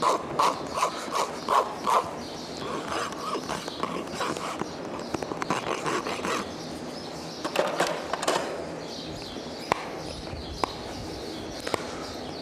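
Farrier's hoof rasp drawn in quick strokes, about two to three a second, across a horse's hoof wall and the edge of a polyurethane shoe, finishing the shoe. It goes softer for a few seconds, strongly again for a moment, then gives way to three sharp knocks about a second apart near the end.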